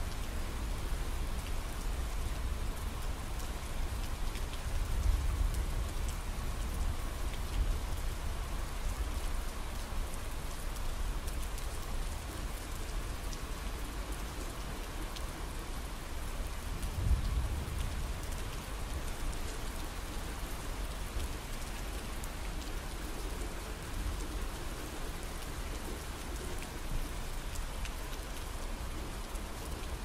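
Steady rain falling, with low rolling thunder rumbles, the strongest about five seconds in and another a little past halfway.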